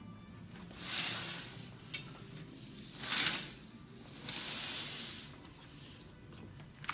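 Heavy fabric drapes being pulled open on their rod, a few quick swishes with a sharp click about two seconds in. Near the end a sliding glass door opens and steady outdoor noise comes in.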